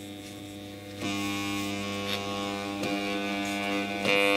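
Makita angle grinder armature fed mains current through a 500 W bulb, humming as it is turned by hand from one commutator segment to the next. The hum is weak at first, grows at about a second in, changes again near three seconds and is loudest near the end. The owner takes the weak, uneven hum for an interturn short in a winding that looks burnt out completely.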